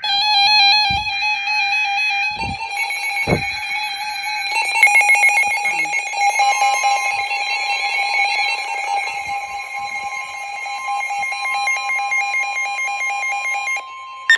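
Loud electronic Emergency Alert System alert tone that signals a new warning is about to be read, holding one steady pitch with many overtones; a second, slightly higher steady tone joins about six seconds in. A few low thumps sound in the first few seconds.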